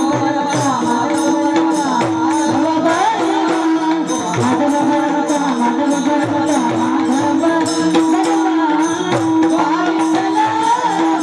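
Music: a singing voice over a steady held drone, with rhythmic jingling percussion.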